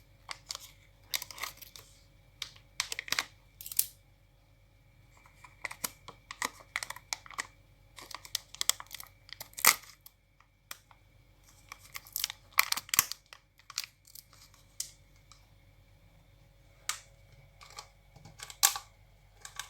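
Plastic packaging being torn and crinkled by hand in irregular bursts while it is pried open.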